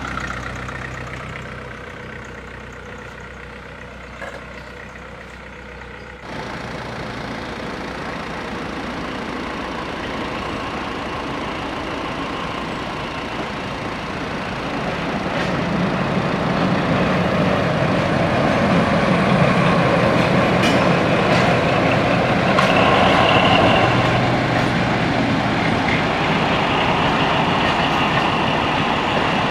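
Passenger train approaching and running across a level crossing: a low rumble that grows louder from about halfway through, with the clatter of wheels on the rails, over waiting road vehicles idling.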